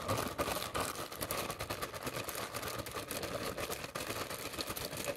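Hefty plastic zip-top bag crinkling and rustling steadily as it is handled and squeezed, working radish slices around in oil inside it.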